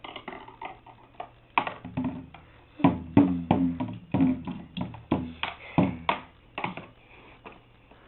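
Toy drum beaten with plastic drumsticks by a baby, in uneven, irregular hits about two a second, each with a short ringing tone.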